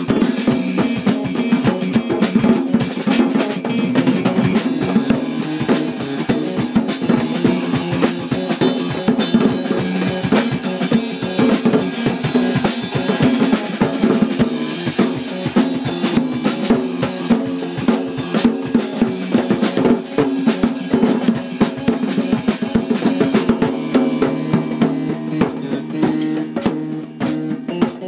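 Live band jam: a drum kit playing a steady, busy beat with kick, snare and rimshots, over sustained low instrument notes.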